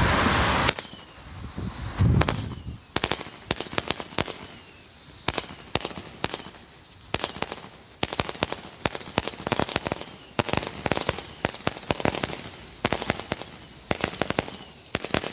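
A 61-shot cicada repeater cake firing a steady barrage: many overlapping whistles, each falling in pitch, mixed with rapid sharp cracks of the bursts. It starts about a second in and keeps going without a break.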